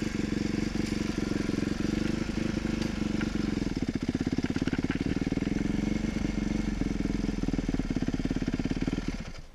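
Dirt bike engine idling steadily, then shutting off suddenly near the end.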